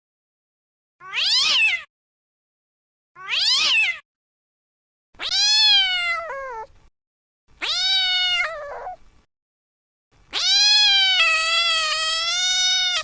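Domestic cat meowing five times: two short, high-pitched meows, then three longer, lower meows. The last is drawn out for about three seconds and wavers in pitch.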